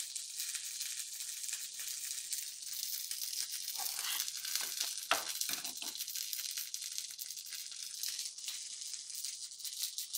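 A metal spoon scraping and clinking in a small stainless-steel saucepan of cooked rice as portions are served out, with a sharp clink about five seconds in, over a steady high hiss.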